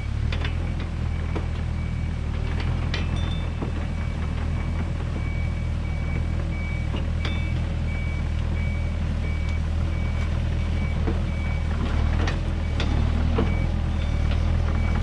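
Yanmar mini excavator's diesel engine running steadily at low idle as it tracks forward pushing dirt with its dozer blade. A steady series of short, high alarm beeps starts about two seconds in, and there are occasional clanks.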